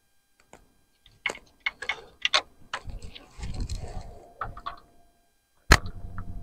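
Irregular small metal clicks and clinks of hands and tools working on the engine's timing-chain parts, with one loud sharp click near the end.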